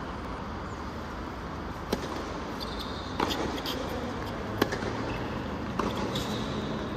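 Tennis rally on a hard court: four sharp racquet strikes on the ball, evenly about a second and a quarter apart, with short high shoe squeaks between them.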